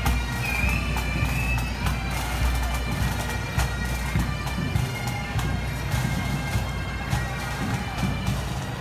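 Bagpipes playing, with steady low drones held under the melody.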